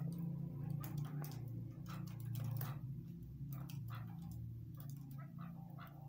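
Caged chukar partridges giving quick, short clipped call notes, irregular and several a second, over a steady low hum.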